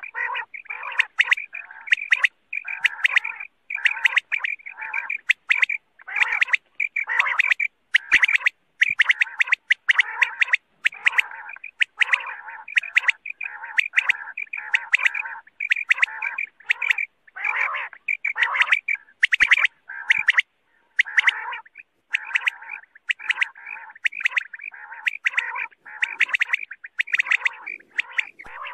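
Common quail calling in a fast, unbroken string of short chirping calls, several a second: a quail call track played to lure quail for hunting.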